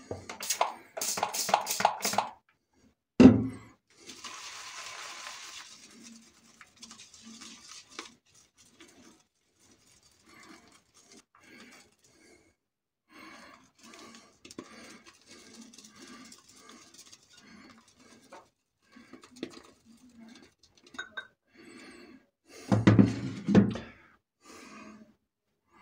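Silvertip badger shaving brush working soap into lather in a shaving mug: soft brushing with clinks and knocks of the brush against the mug. There is a quick run of sharp clicks near the start, a single loud knock about three seconds in, and a louder cluster of knocks near the end.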